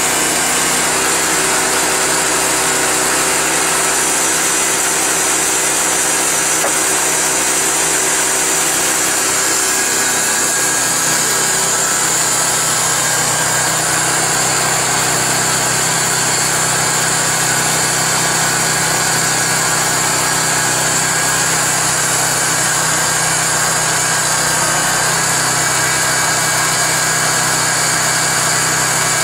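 Harbor Freight bandsaw mill running steadily, its small gas engine under load as the 1½-inch Wood-Mizer Double Hard band blade saws through a log. The engine note shifts a little about twelve seconds in.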